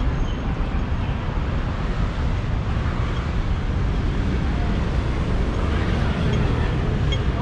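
Busy city street ambience: a steady rumble of traffic with wind buffeting the microphone, and a few short high beeps near the end.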